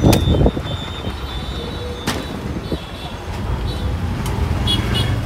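A machete chops into a tender coconut near the start, then a single sharp knock about two seconds in, over a steady low rumble of road traffic.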